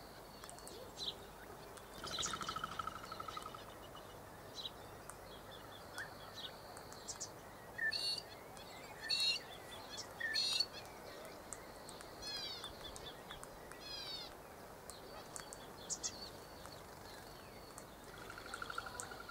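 Birds calling: many short high chirps over a steady high trill, with three louder calls between about eight and eleven seconds in and some quick falling notes soon after.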